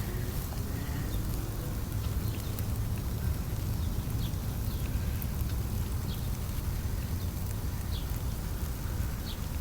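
Steady low rumble of outdoor ambience, such as wind on the microphone, with faint, short high chirps or ticks scattered through it.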